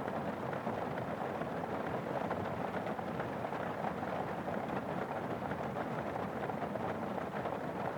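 Steady rain falling, an even, dense patter at a constant level.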